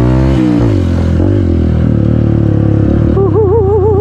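Motorcycle engine heard from on the bike, revving up and then easing off about half a second in, then running steadily. A wavering, bleating call sounds over it near the end.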